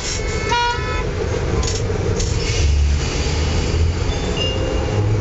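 Old DL3000 tram running along street track with a steady low rumble, and a short horn toot about half a second in.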